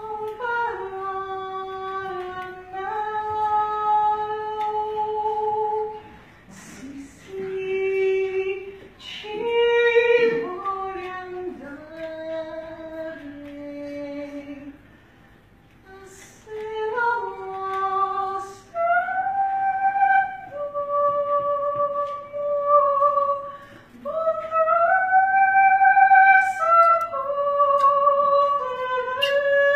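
A solo female soprano singing in classical style with no accompaniment heard. She holds long notes with vibrato in phrases broken by short pauses, the longest about halfway through.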